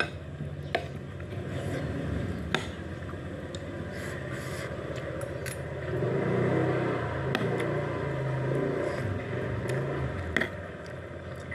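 Metal spoon clicking and scraping against a ceramic bowl a handful of times, with chewing, over a steady low engine rumble that swells from about six seconds in and fades near the end.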